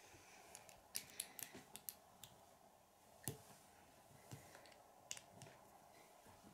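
Small plastic Lego pieces clicking as they are handled and pressed together: an irregular run of light clicks, with one sharper snap about three seconds in.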